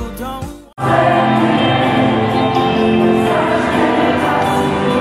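Brief background music that cuts off sharply just under a second in, then loud live concert music with a group of voices singing.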